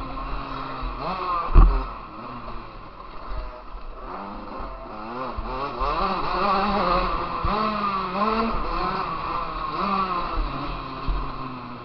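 Motocross bike engine heard from an onboard camera, revving up and dropping back again and again as it is ridden hard, with one loud thump about a second and a half in.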